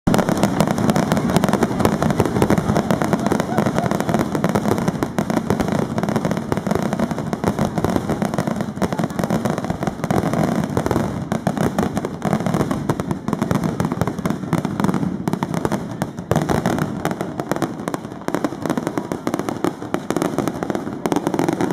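A fireworks display firing without a break: a dense, continuous run of bangs and crackling.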